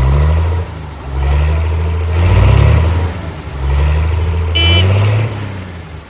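Tractor engine running and revving up and down in waves, with one short horn beep near the end.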